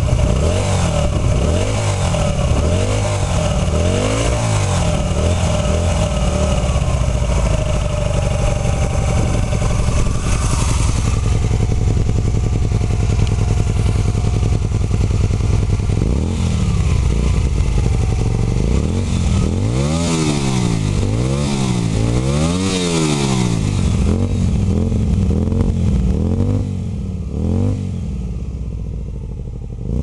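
Warm Hyosung GT125's 125 cc V-twin engine running through a Takkoni sport exhaust with its dB killer removed, revved while standing: repeated throttle blips rising and falling, a quick run of them about two thirds in, then settling back to idle near the end.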